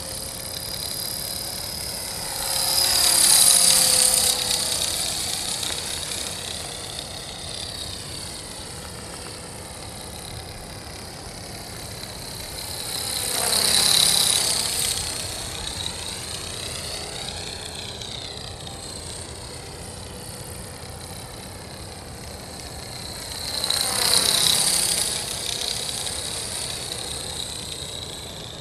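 Accurate 400 RC helicopter flying, its motor, gears and rotors giving a steady whine that swells loud three times as it comes close. It is running with an odd noise and vibration left by a crash.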